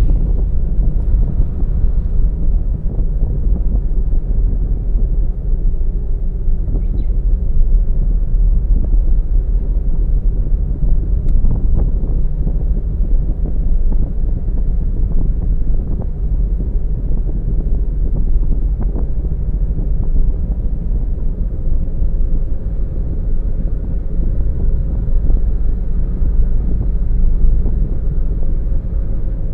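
Steady low rumble of a car driving along a road: tyre, engine and wind noise picked up by a car-mounted camera, with a few faint ticks.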